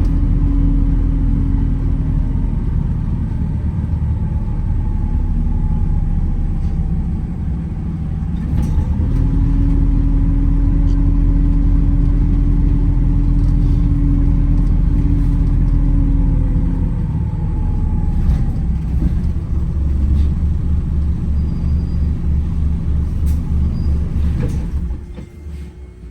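Wright Gemini 2 hybrid double-decker bus heard from on board while driving: a steady low drone with a thin whine that rises and falls with speed. About 25 s in, the drone drops away sharply.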